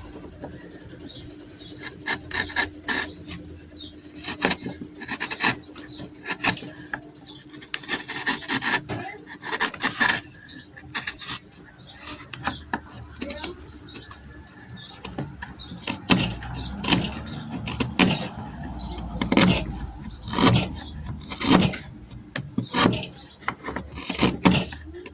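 A hand tool worked back and forth on wood with rasping strokes, irregular at first, then settling into a steady rhythm of about one stroke a second over the last third.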